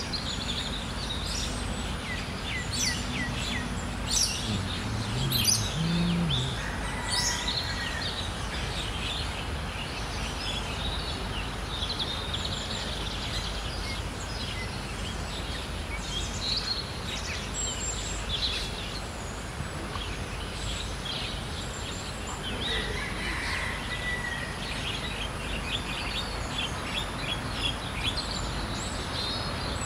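Small birds chirping with short, high calls throughout, over a steady low background hum.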